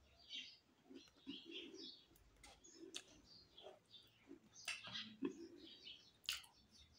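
Faint birds chirping in the background, with a few soft clicks and mouth sounds as green grapes are plucked off the bunch and eaten.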